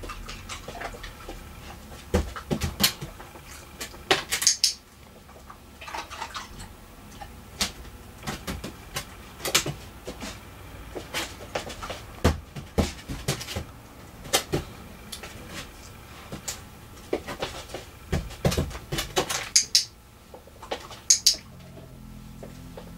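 Irregular clicks, knocks and clatter of a dog's paws and nails stepping onto, over and off a hollow aluminium case and the hard floor, with a few sharper bright clicks among them.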